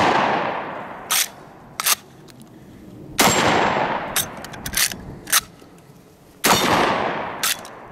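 Chiappa 1887 Mare's Leg lever-action 12-gauge shotgun firing: the echo of one shot fades at the start, then two more shots about three seconds apart, each with a long echoing tail. Short metallic clacks of the lever being worked come between the shots.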